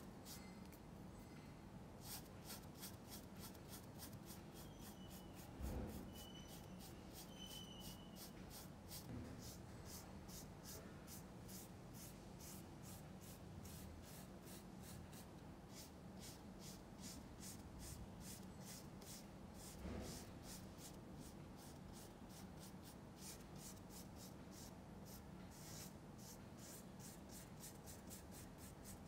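Faint, quick brush strokes scrubbing oil paint across the canvas with a bristle brush, in an even rhythm of about two to three strokes a second, with a couple of soft bumps.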